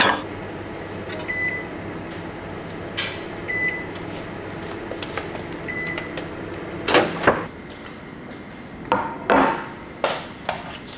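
Microwave oven beeping three times, about two seconds apart, over a steady low hum. Then come several knocks and clatters of a container being handled.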